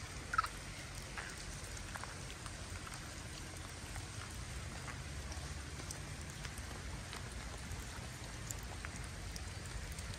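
Spring rain falling steadily on wet paving and grass, with scattered individual drops ticking through an even hiss and a low rumble underneath.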